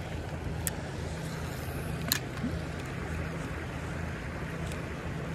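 Steady rush of a shallow, rippling creek flowing over stones, with a low rumble under it. A sharp click about a second in and a louder one about two seconds in.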